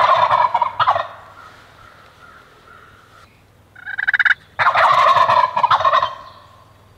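Wild turkey gobblers gobbling close by: one gobble right at the start and a second, longer gobble about four and a half seconds in, just after a short rattling burst.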